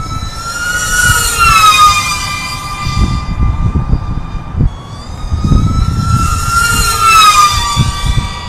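FPV racing quadcopter making two full-speed passes. Its motors' high whine swells, then drops in pitch as it flies by, about a second in and again about seven seconds in. A low, gusty wind rumble on the microphone runs underneath.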